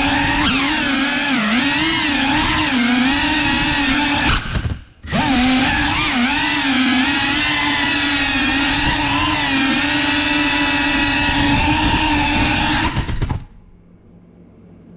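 Cinewhoop FPV drone's small brushless motors and ducted propellers buzzing with a whine whose pitch wavers as the throttle changes. The sound cuts out briefly about a third of the way in, returns, then stops abruptly near the end.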